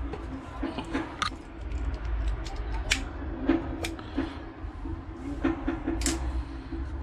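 Sharp clicks and handling noises as a hand-held lighter is worked to light charcoal soaked in lighter fluid. There are several separate clicks, the loudest about three, four and six seconds in.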